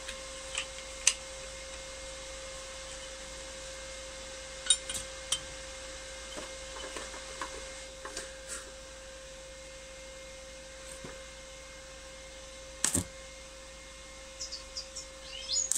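Steady electrical hum from a switched-on inverter welding machine, one even tone, with a few sharp metallic clicks and clinks as the earth clamp and electrode holder are handled. A crackle begins right at the end.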